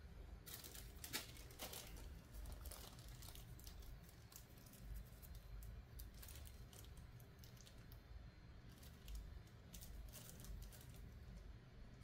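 Faint crinkling and rustling with scattered small clicks, from something small being handled, over a faint low steady hum.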